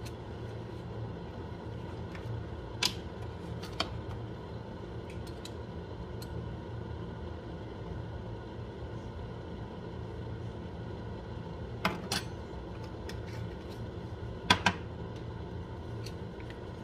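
Glass spice jar of black pepper being shaken and tapped over a pan: a handful of short sharp clicks, two close pairs in the second half, over a steady low hum.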